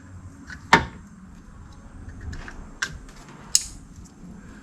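Plastic wiring-harness connectors in a car door being handled and fitted together, making a few sharp clicks, the loudest about a second in.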